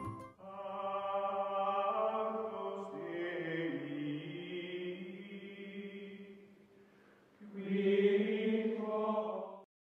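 Outro music of chanted, choir-like voices holding long notes that shift in pitch a few times, fading out about seven seconds in. A second held chord follows half a second later and cuts off just before the end.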